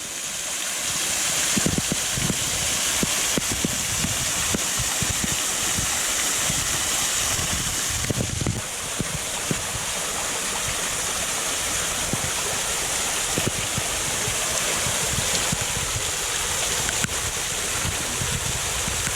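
Waterfall pouring and splashing: a steady rushing hiss of falling water, with irregular low splashes underneath.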